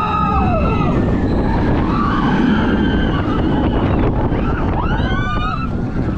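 Roller coaster running: several whining tones glide up and down in pitch over a heavy rumble of wind and track noise, with a steep rising whine about five seconds in.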